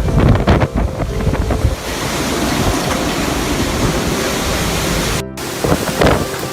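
Storm-force wind blowing and buffeting the microphone in gusts. The sound drops out for a moment about five seconds in, then the wind noise resumes.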